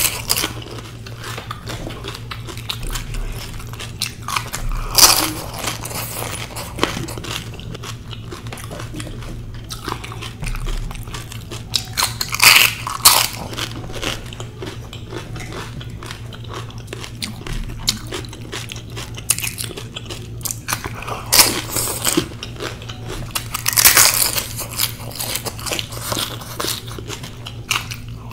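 Close-miked eating of pani puri: the crisp, hollow puri shells crunch loudly as whole ones are bitten, every few seconds, with quieter wet chewing in between.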